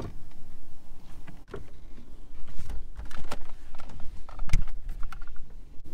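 A 1979 Pontiac Parisienne rolling slowly with its engine off as it is pushed by hand, heard from inside the cabin: a low rumble with scattered creaks, clicks and knocks, the strongest knock about four and a half seconds in.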